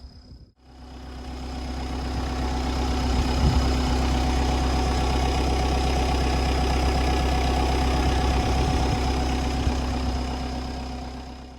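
Farm tractor engine running steadily with a deep, even hum. It fades in after a brief break just after the start and fades out near the end.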